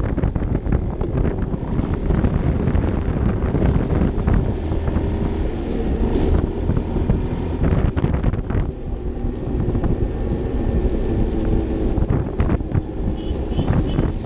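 Wind buffeting the camera microphone on a moving Vespa LXV 150 scooter, over the steady running of its single-cylinder four-stroke engine.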